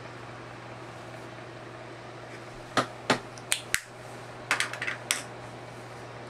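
A cluster of small clicks and light knocks between about three and five seconds in, as makeup containers and tools are handled and set down on a desk, over the steady low hum of a room fan running on low.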